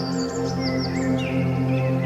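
Ambient new-age music of steady held tones, with small birds chirping over it in quick, short calls.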